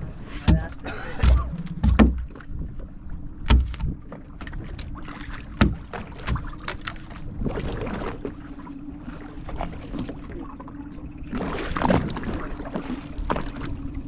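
On-deck sound of a small fishing boat at sea: a steady low hum with rushes of wind and water noise, and several sharp low thumps in the first six seconds.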